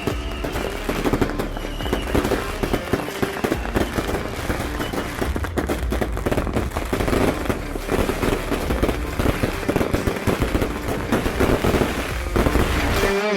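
Beehive fireworks going off: hundreds of bottle rockets and firecrackers crackling and banging in a continuous rapid barrage with no pause.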